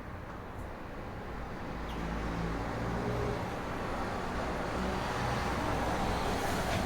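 Traffic noise: a road vehicle's rumble that grows louder from about two seconds in, is loudest near the end, then starts to fade, as when a vehicle passes.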